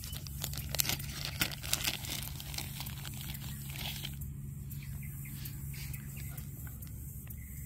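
A clear plastic bag of distributor rebuild parts crinkling, with small parts clicking, as it is handled. It is busiest in the first half and dies down after about four seconds.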